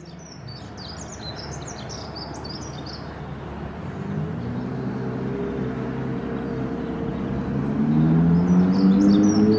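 Ferrari LaFerrari Aperta's 6.3-litre V12 approaching, growing steadily louder, its pitch rising from about halfway in. Small birds chirp in the first few seconds and again near the end.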